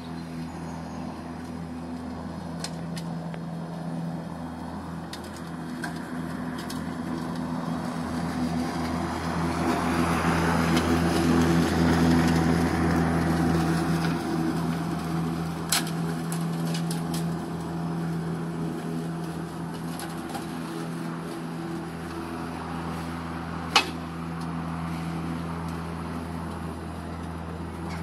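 Makita DLM460 twin-battery cordless lawn mower running while cutting grass: a steady electric motor and blade hum that grows louder as the mower passes close, about midway. Twice a sharp clank, the second one louder, which the owner says was pine cones, not stones.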